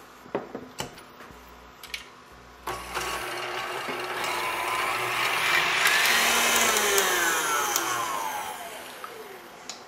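KitchenAid stand mixer whipping cream with its wire whisk: a few light knocks, then the motor starts about three seconds in, its whine rising in pitch and then falling away as it winds down near the end.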